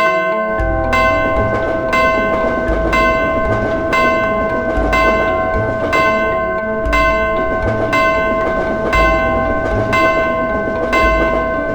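Railway crossing bell ringing, struck about once a second, over the rumble of a passing train.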